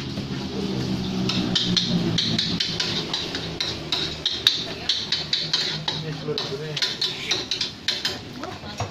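Spatula scraping and clanking against a wok as fried rice is stir-fried, in quick irregular strokes.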